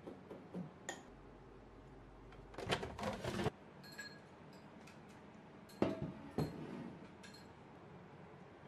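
Metal spoon clinking and scraping against a ceramic bowl of chili sauce, with light ringing clinks, then a few sharper clatters of kitchenware, the loudest about three and six seconds in.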